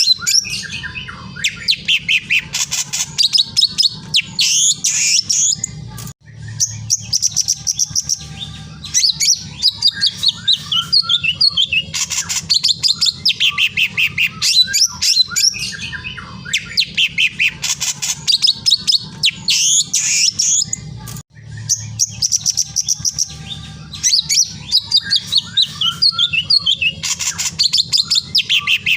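Many small birds chirping and twittering over a steady low hum, the same stretch of birdsong repeating about every 15 seconds as a looped recording.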